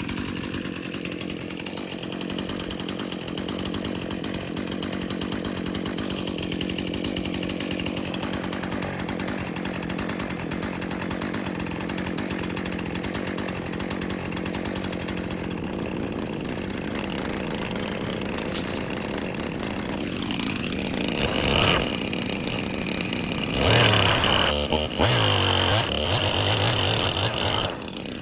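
Portable sawmill's small gasoline engine running steadily while white oak is sawn into stickers; the sound grows louder and harsher for the last several seconds.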